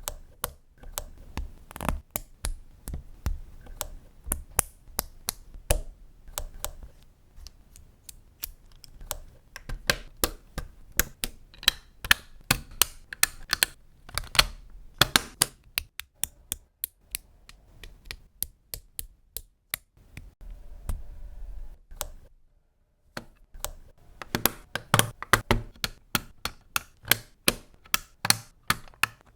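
Plastic Technic-style building pieces being handled and clicked together: a long run of sharp, irregular clicks and taps, with a brief pause a little past the middle.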